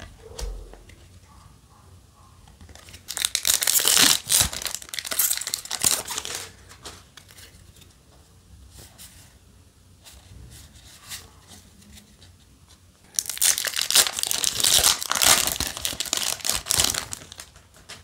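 A Yu-Gi-Oh! booster pack's foil wrapper being torn open and crinkled, twice, each time for a few seconds, with quiet card handling in between.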